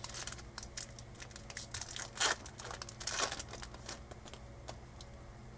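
Foil wrapper of a baseball card pack being torn open and crinkled: many quick crackles, with two longer rustles a little after two and three seconds in, then quieter handling near the end.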